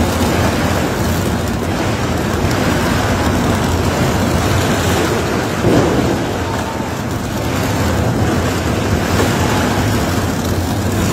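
Tunnel boring machine breaking through a rock face, heard as a steady, noisy roar mixed with hoses spraying water onto the rock. There is a brief louder surge about six seconds in as rock breaks away.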